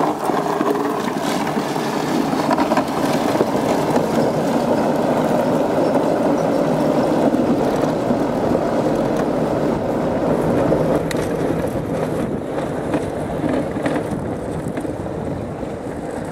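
Ziesel tracked electric off-road wheelchair driving over gravel: a steady rolling noise from its crawler tracks on the stones, with scattered small clicks. It eases off slightly near the end.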